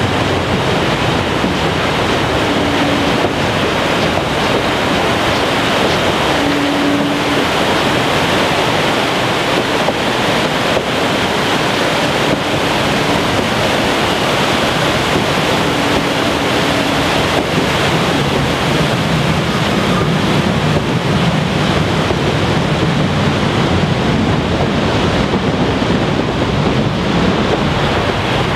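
Steady rushing noise heard from a moving narrow-gauge train coach over a river: the whitewater rapids below mixed with the train's rolling and wind on the microphone, with a few brief low tones now and then.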